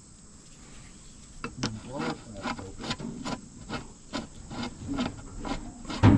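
Irregular scraping and clicking, a couple of strokes a second, of hand tools working against metal on the excavator's engine.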